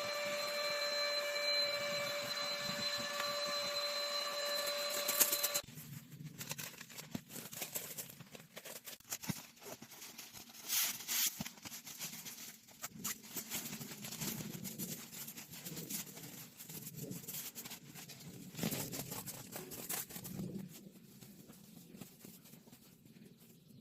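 A small motor whining steadily at a fixed pitch, cutting off suddenly about five and a half seconds in, followed by scattered light clicks and knocks.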